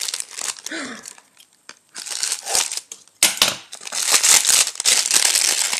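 Gift wrapping crinkling as a wrapped package is handled and unwrapped by hand. It stops briefly about a second in, then crinkles densely and continuously from about three seconds on.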